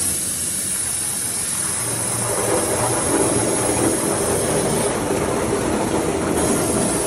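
Grape-processing machinery running steadily: a continuous mechanical noise with some hiss that grows fuller about two seconds in.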